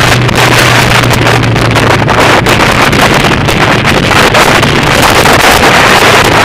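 Motorcycle cruising on the road, heard from on board: a steady engine hum under heavy wind noise on the microphone. The engine hum drops away about five seconds in while the wind noise carries on.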